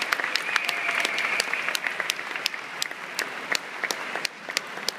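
Audience applauding, the clapping thinning out and growing quieter near the end.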